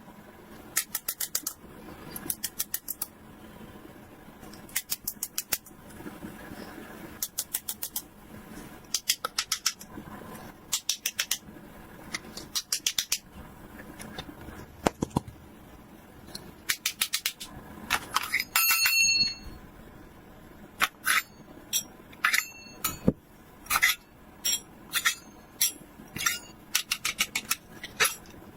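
Handling of plastic toy pieces and packaging: short bursts of rapid clicking and crackling, one every second or two, with single sharper clicks in the second half.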